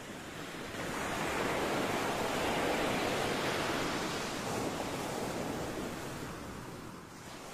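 Ocean surf: a wave washing in, swelling for a couple of seconds and then slowly fading away.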